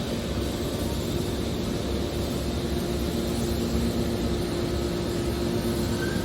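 Hydraulic metal baler running with a steady machine hum: two constant low tones over an even rumble and hiss.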